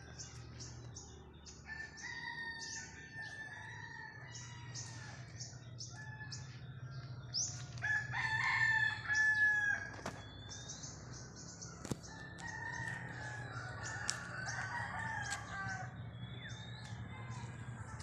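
Roosters crowing in repeated long calls, the loudest about eight seconds in, over a constant chatter of small birds chirping. A low steady hum runs underneath.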